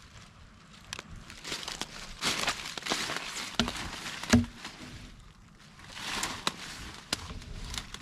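Footsteps crunching through dry dead brush, with scattered wooden knocks and clicks as a log is worked off a log pile. One louder thump comes a little past the middle.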